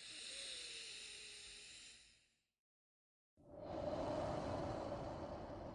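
One slow, deep breath close to the microphone: an airy in-breath lasting about two and a half seconds, a pause of about a second, then a louder, fuller out-breath.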